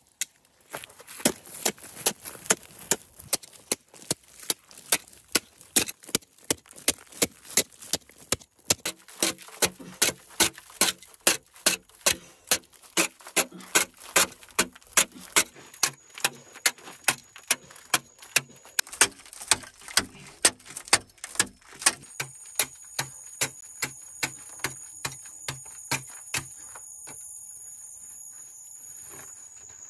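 Metal hoe striking hard stony laterite soil in a steady chopping rhythm, about two strokes a second, stopping near the end. Steady high-pitched tones join in over the second half.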